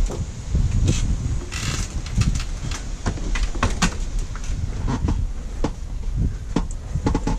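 Irregular knocks, clicks and clanks of seat hardware and tools being handled during a car seat installation, over a low rumble, with a short hiss about a second and a half in.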